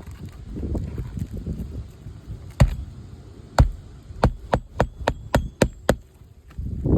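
Hammer driving roofing nails into an asphalt shingle: about nine sharp strikes, the later ones about three to four a second, after a low rumble of handling noise.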